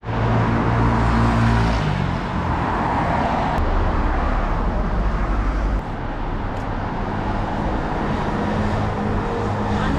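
City street traffic: car engines and tyre noise from vehicles passing on the road, a steady rush with a low hum, loudest in the first couple of seconds.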